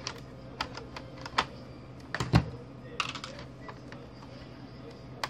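Scattered small clicks and taps of hands and tools handling an opened laptop's plastic case and internal parts, with a louder knock a little past two seconds in and a quick cluster of clicks about a second later.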